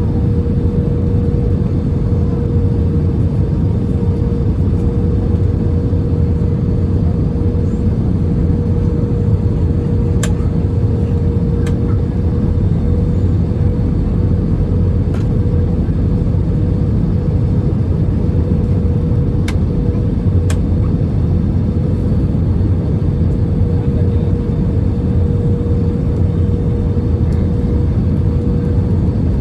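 Steady cabin noise inside an Airbus A320 airliner: an even rumble of engines and airflow with a steady hum through it, and a few faint ticks.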